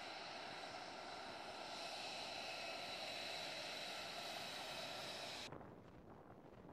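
F-35's Pratt & Whitney F135 turbofan running at taxi power close by: a steady, rushing jet whine with several high tones held over it. About five and a half seconds in it cuts off abruptly to a fainter, rougher jet rumble heard from afar, with wind on the microphone.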